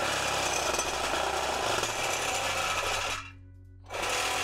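Reciprocating saw with a short five-inch metal-cutting blade sawing through a steel exhaust pipe. It runs steadily for about three seconds, stops briefly, then starts again near the end.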